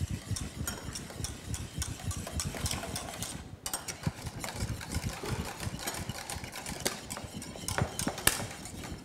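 Wire balloon whisk beating thick, just-cooked pastry cream in a stainless steel saucepan, working margarine into it. The wires rattle and scrape against the pan in quick, steady strokes.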